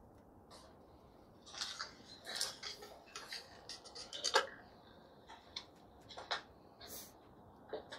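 Clicks and rustles of a small handheld audio recorder being handled, with its buttons being pressed, in an irregular run of sharp ticks; the loudest click comes a little past halfway.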